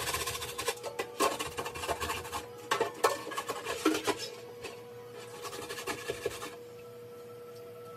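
Dishes being washed by hand at a kitchen sink: running tap water with clinks and scrapes of dishes, then the water and clatter stop about six and a half seconds in.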